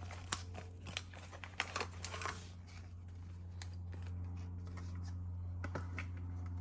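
Small plastic kit parts and their packaging being handled: a run of light clicks and rustling in the first couple of seconds, then one more click near the end, over a steady low hum.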